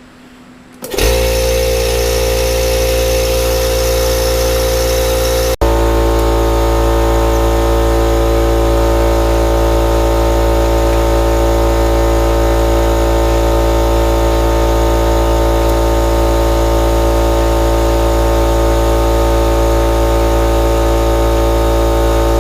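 Air compressor running steadily to inflate a freshly plugged tire, a loud motor hum with several steady tones. It starts about a second in, breaks briefly with a click about five seconds in, and then runs on at a slightly different pitch.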